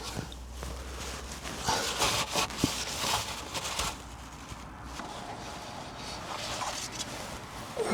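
Rubbing and scraping handling noises with a few light clicks, clustered between about one and a half and four seconds in, over a low hum that stops partway through.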